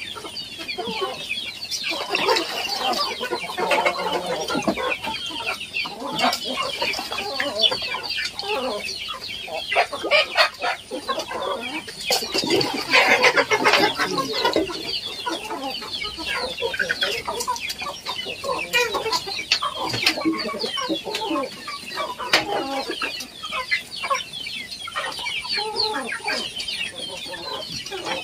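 A flock of Indonesian village chickens (ayam kampung) clucking steadily while they feed, with many overlapping short calls and scattered sharp knocks.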